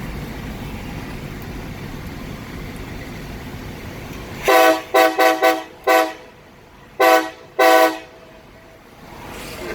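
Multi-tone train air horn sounding a rhythmic signal of seven short blasts: five quick toots, a pause, then two more. A steady low engine rumble runs underneath before the horn starts.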